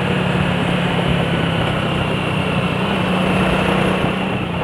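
Motorcycle engine running at a steady speed while riding, with wind and road noise on the microphone.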